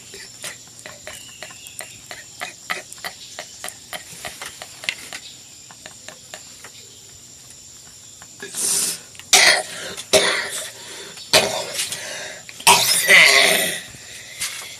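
A man coughing, about five coughs in the second half, the last one longer and drawn out. Before them, faint quick ticking.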